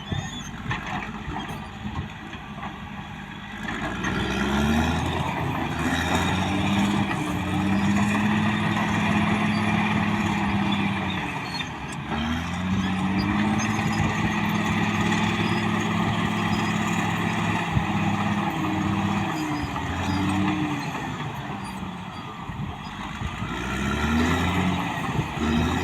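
CAT D6R XL bulldozer's diesel engine running under load. Its pitch rises as the engine revs up, holds, then falls as it eases off, in repeated cycles: up about four seconds in, down near the middle, up again, and down and back up near the end.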